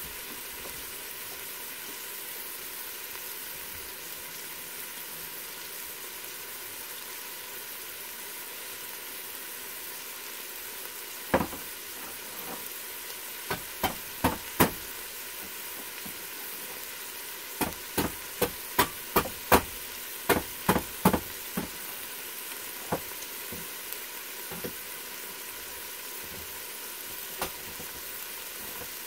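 Diced onions, bell peppers and tomatoes sizzling in an Instant Pot's stainless steel inner pot on the sauté setting. A steady hiss runs under sharp pops of spattering that start about a third of the way in and come in a quick cluster of a dozen or so about two-thirds through.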